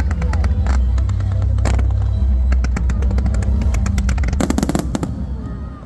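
Fireworks going off: heavy low booming of aerial shells under a stream of sharp crackling pops, with a dense rapid crackle about four and a half seconds in before the barrage eases off near the end.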